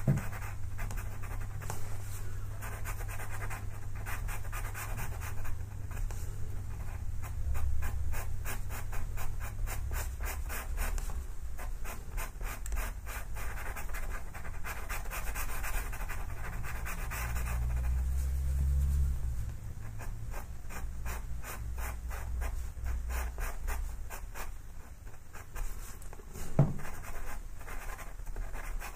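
Pastel pencil scratching across textured pastel paper in many quick back-and-forth shading strokes, with a low hum underneath.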